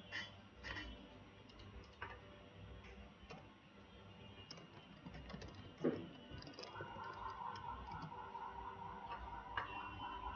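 Faint, scattered keystrokes on a computer keyboard while a URL is typed. A short louder sound comes about six seconds in, and from about seven seconds a faint, evenly pulsing tone sets in.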